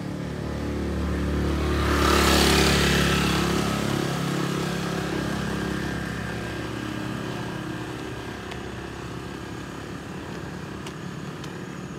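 A motorcycle passes close by from behind. Its engine and tyre noise swells to a peak about two and a half seconds in, then fades steadily as it rides off up the road.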